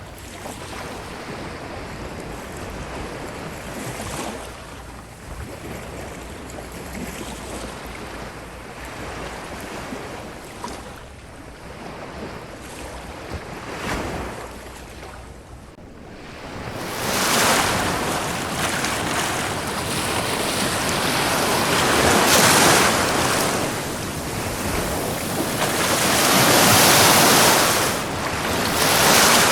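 Ocean waves washing up a beach, a steady rushing surf with some wind, rising into louder breaking surges in the second half.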